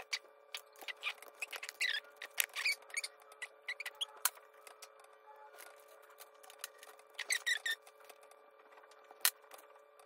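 Handling noises from a small RC crawler chassis: light clicks, taps and short squeaks of plastic parts and motor/ESC wiring being pulled and worked by hand, with clusters of squeaks about two seconds in and again near seven seconds, and a single sharp click near the end.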